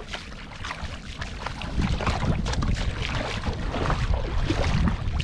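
Wind buffeting the microphone, growing stronger about two seconds in, over a constant crackling outdoor noise.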